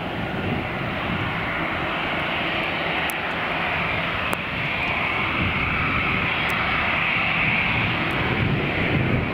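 Jet engines of an Aer Lingus Airbus A320-family airliner taxiing as it turns on the runway: a steady rumble under a high whine that grows stronger midway.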